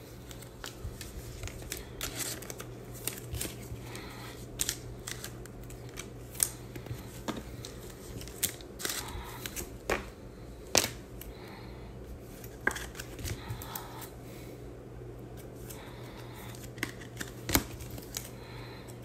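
Trading cards, plastic card sleeves and packaging being handled on a table: an irregular run of sharp clicks and snaps with light rustling, over a low steady hum.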